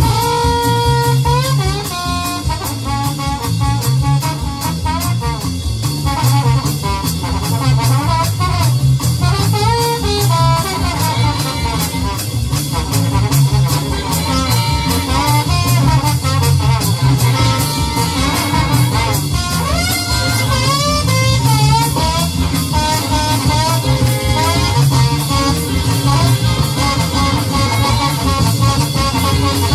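Big band jazz, with brass and saxophone lines over fast, busy drumming, the drums played along on an electronic drum kit.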